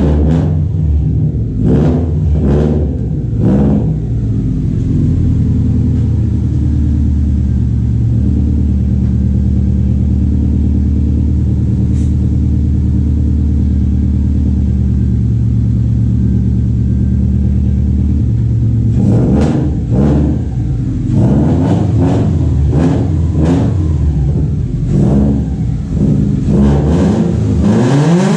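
A 2005 Subaru WRX STI's 2.5-litre turbocharged flat-four is blipped several times, settles into a steady idle for about fifteen seconds, then is revved in quick blips again over the last several seconds. With headers fitted it doesn't sound boxery. The engine has low compression (60 PSI) on cylinder 3.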